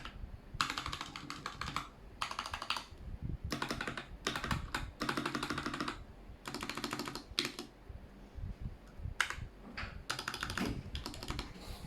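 Keychron K6 mechanical keyboard with stock Gateron Brown tactile switches being typed on in quick bursts of keystrokes, with short pauses between the bursts.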